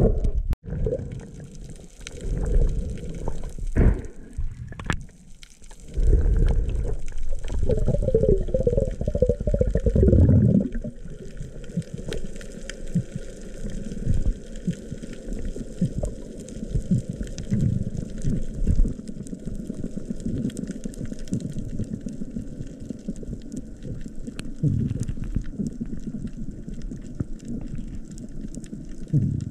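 Water noise heard from an underwater camera: rumbling and bubbling as a freediver swims down along the reef, with scattered small clicks. A louder bubbling stretch runs from about six to ten seconds in, then the sound settles into a steadier, quieter rumble.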